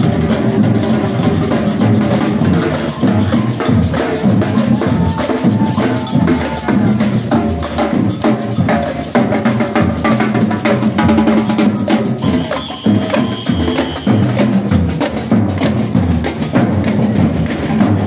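Marching band drums beating a steady, dense rhythm, with a few held notes sounding over them.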